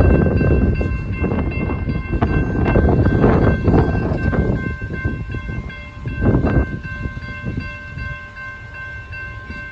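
Amtrak passenger locomotive's air horn sounding a long, steady multi-note chord over the loud rumble and rush of the passing train. The rushing noise surges near the start, around three to four seconds in, and again just after six seconds, then eases off.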